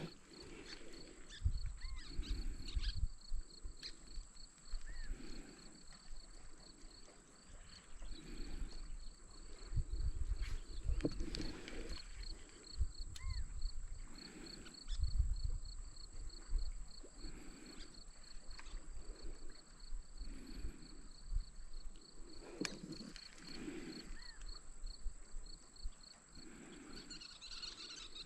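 Outdoor lakeside ambience: a steady pulsing insect chirr, with gusts of wind rumbling on the microphone now and then and a few faint bird chirps.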